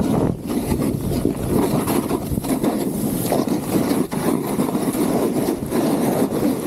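Gnu Headspace snowboard sliding and carving over snow, a continuous scraping that swells and dips, with wind buffeting the microphone.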